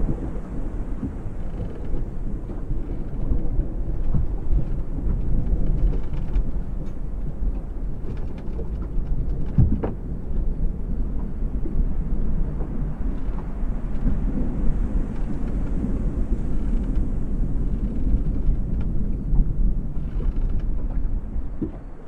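Low, rolling rumble of distant thunder over small ocean waves lapping against a yacht's hull, heard from inside the cabin. The rumble falls away just before the end.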